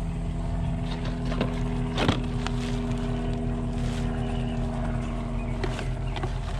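Steady low hum of an idling engine, with a few short knocks and rustles of things being moved around in a plastic trash bin, the sharpest about two seconds in.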